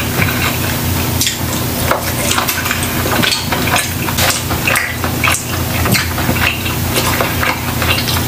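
Close-miked chewing and wet mouth smacks of someone eating a piece of stewed meat by hand, in many short, irregular clicks over a low steady hum.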